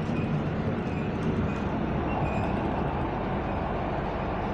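Steady rumble inside the carriage of an EN57AL electric multiple unit train.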